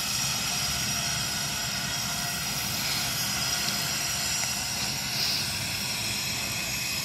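Steady engine drone: a low rumble under a cluster of high, steady whining tones, even in level throughout.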